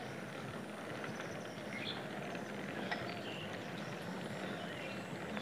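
Steady low noise of a bicycle rolling along a smooth road, with a few faint clicks.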